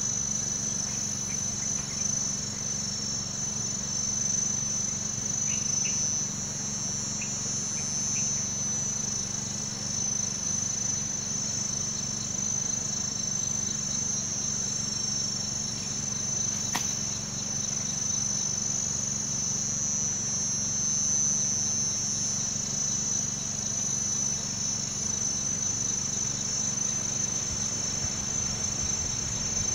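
Steady chorus of insects chirring, a shrill high drone that swells and fades a few times over a low steady hum, with a single sharp click about 17 seconds in.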